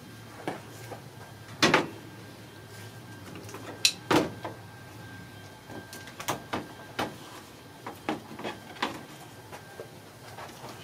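Scattered clicks and knocks of hand work on the plastic bumper of a 2008 Nissan Versa as its fasteners are undone to take the bumper off. There are about a dozen sharp clicks, the loudest near two and four seconds in, and a run of lighter ones in the second half.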